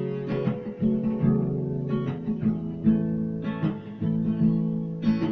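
Acoustic guitar strummed in a steady chord pattern, an instrumental passage between sung lines.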